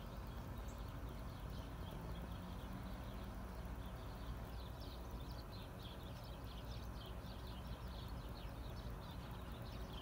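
Many small birds chirping rapidly in quick high notes, growing busier about halfway through, over a steady low outdoor rumble.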